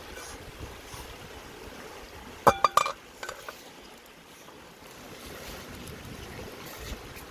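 Metal pot lid clanking against an aluminium cooking pot: three quick ringing clinks about two and a half seconds in, then a lighter one, over the steady rush of a river.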